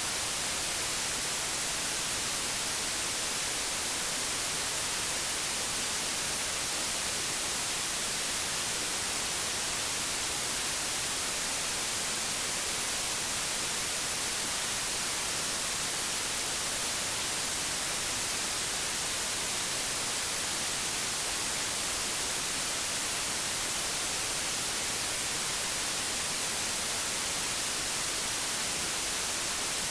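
Analogue television static: a steady, unchanging hiss of white noise, brightest in the treble, from a TV tuned to no channel.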